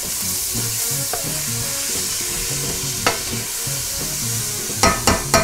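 Diced ham, onion, celery, bell pepper and garlic sizzling in a stainless steel pan while being stirred with a metal spoon: a steady frying hiss with the spoon clacking against the pan once about three seconds in and several times in quick succession near the end.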